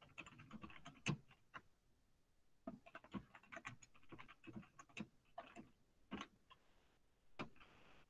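Typing on a computer keyboard, faint: quick key taps in a short run at the start, a longer run through the middle, and a single tap near the end.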